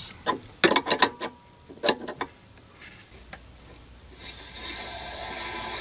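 A wrench knocking and clicking on the brass compression nut of a saddle valve in a few sharp metallic strokes. About four seconds in, a steady hiss starts as the valve is opened and water runs into the plastic fridge line.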